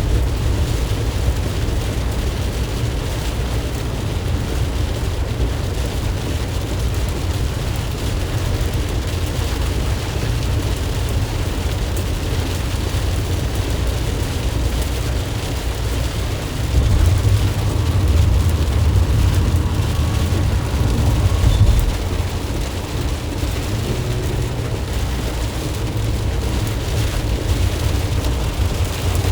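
Ram ProMaster van driving on wet roads in heavy rain, heard from inside the cab: a steady low rumble of engine and road with an even hiss of rain and wet tyres. It grows louder for a few seconds about seventeen seconds in.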